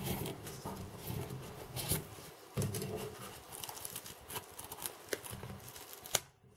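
Close handling noise: cotton fabric rustling, with scattered small clicks and scrapes as a wooden skewer is worked into a fabric-covered craft doll body.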